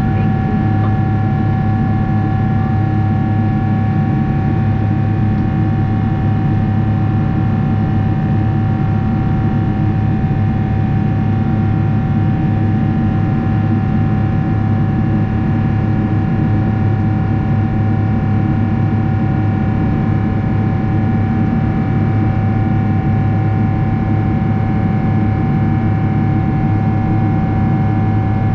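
Steady jet airliner cabin noise from a Boeing 777-300ER in flight: engine and airflow rumble with a deep hum and a steady whining tone on top.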